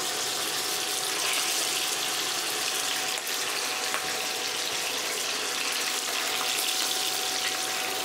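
Raw chicken breast pieces sizzling in hot oil in a frying pan: a steady hiss.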